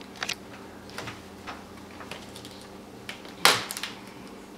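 Small plastic clicks and taps as a laptop's speaker piece and its connector are worked into place in the base beside the screen hinge, with one much louder click about three and a half seconds in.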